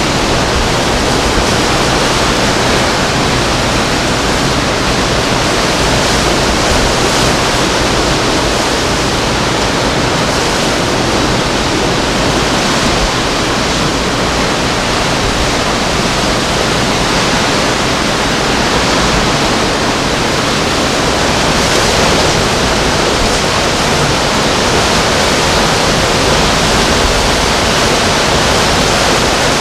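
Hurricane winds blowing hard: a loud, steady rushing noise that swells slightly now and then.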